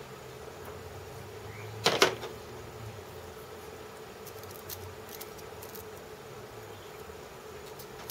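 A small hammer taps the cast-aluminium headstand twice in quick succession about two seconds in, nudging it back into square. A faint steady hum runs underneath, with a few light clicks later on.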